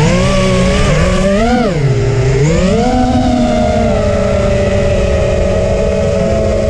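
Eachine Wizard X220 FPV racing quadcopter's electric motors and propellers whining, heard from the onboard camera. The pitch rises and dips with the throttle between one and three seconds in, then holds steady in flight.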